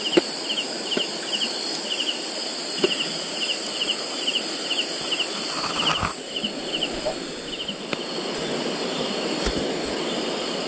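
Insects calling: an even pulsed chirping, about three chirps a second, over a steady high buzz. The chirping pauses for a couple of seconds after about six seconds in, then returns. A few light taps sound on top.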